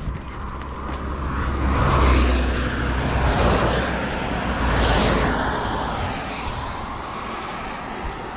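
Road traffic passing close by: rushing tyre and engine noise with a low rumble, swelling about two seconds in and again near five seconds, then fading away.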